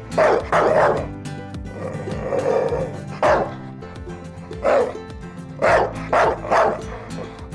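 A dog barking, about seven short barks in separated groups, over background music.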